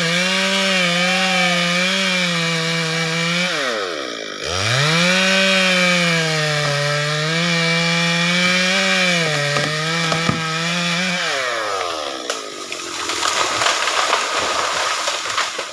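A two-stroke chainsaw cutting into a large sonokeling rosewood trunk, its engine note dipping and swooping back up about four seconds in, then running steady before winding down at about eleven seconds. A loud crackling, rushing noise full of small cracks follows for the last few seconds, then fades.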